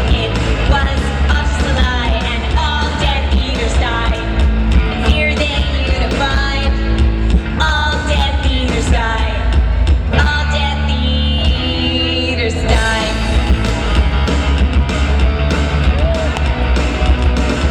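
A rock band playing live with a singer: loud drums keeping a steady beat, heavy bass, and sung vocal lines over the top.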